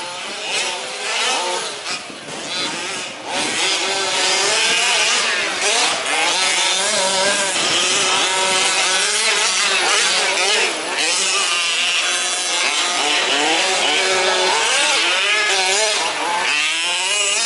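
Several 1/5-scale petrol RC off-road trucks racing, their small two-stroke engines buzzing and revving up and down over one another as they accelerate and brake around the track.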